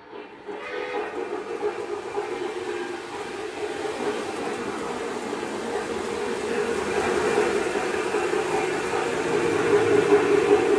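O gauge model steam locomotives pulling passenger cars on three-rail track: a steady rolling rumble of wheels on rails that starts about half a second in and grows louder as the trains come closer.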